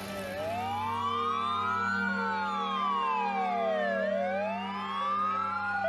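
Sirens of two fire engines wailing, each rising and falling slowly, about two seconds each way, overlapping out of step.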